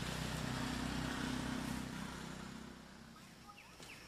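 A motor vehicle's engine running steadily, fading away about two-thirds of the way in, followed by a few short high chirps near the end.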